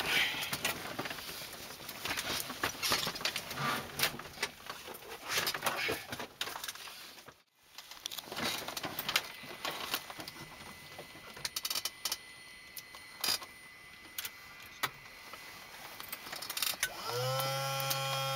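Scattered clicks, knocks and rustles of handling inside a Cessna 185 floatplane's cockpit while it is readied for engine start, the engine still off. A steady hum with several tones starts about a second before the end.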